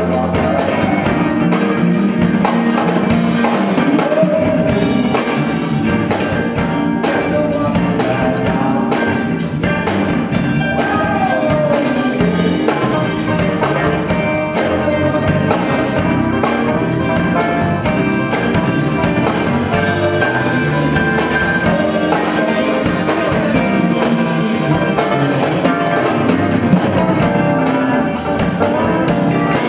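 Live blues band playing: two electric guitars, electric bass and a drum kit keeping a steady beat, with no talking over the music.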